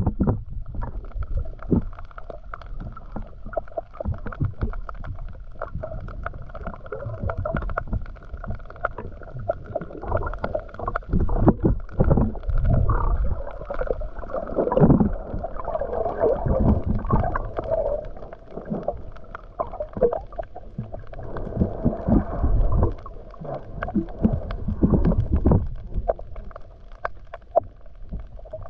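Muffled underwater sound through a waterproof camera housing: low rumbling and sloshing of water that swells and bumps irregularly as the swimmer moves, over a faint steady hum.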